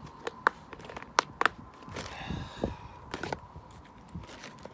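Fishing gear being handled and packed away: a scattered run of sharp clicks and knocks, with a brief scraping rustle and a few dull thuds about two seconds in.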